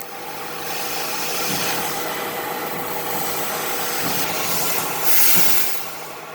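CNC laser cutting machine running with a steady hum, with a loud hiss for under a second about five seconds in.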